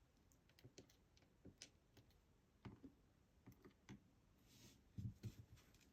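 Faint, irregular small clicks and taps of an ASSA 700 lock's pins, springs and tools being handled as the lock is taken apart, with a slightly louder pair of taps about five seconds in.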